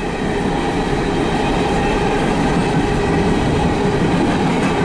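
Empty CSX coal cars rolling past close by, with a steady noise of steel wheels running over the rails.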